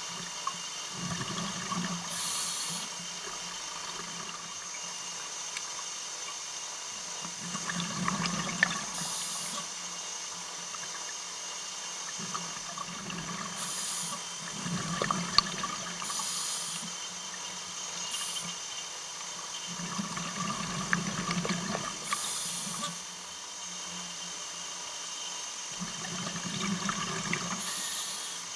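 Scuba diver breathing through a regulator, heard underwater: five breath cycles about six seconds apart, each a short high hiss of inhalation and a bubbling, gurgling rush of exhaled bubbles, over a steady background hiss.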